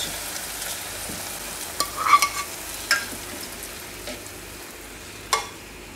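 Hot tadka oil with fried onions and cumin sizzling as it hits the water in a rice cooker pot, the hiss slowly dying away. A few scrapes and knocks of a spatula stirring come through about two, three and five seconds in.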